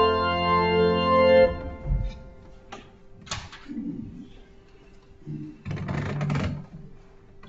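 Church organ holding a final chord that cuts off about a second and a half in. Quieter, scattered short noises follow over a faint steady hum.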